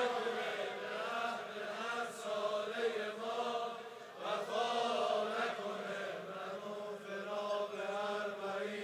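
A crowd of mourners chanting a Muharram lament together in unison, with long held notes. It is much softer than the lead singer's voice around it.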